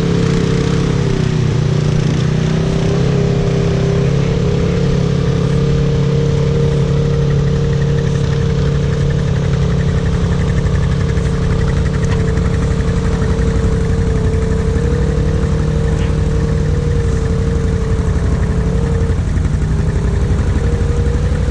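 ATV engine running at a steady, constant throttle, its pitch easing off briefly about a second in and again near the end.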